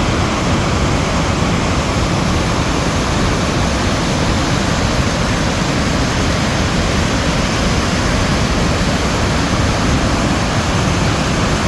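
Water pouring through a dam's open gates: a loud, steady rush of falling water that does not change.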